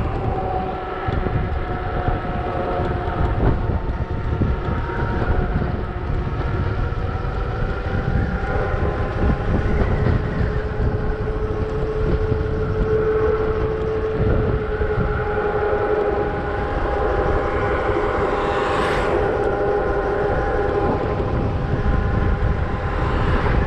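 Electric bike's motor whining steadily at cruising speed, over wind rushing across the microphone. A brief louder whoosh comes about three-quarters of the way through.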